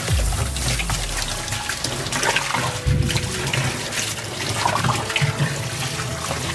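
Running water splashing, broken by a few low knocks and thuds.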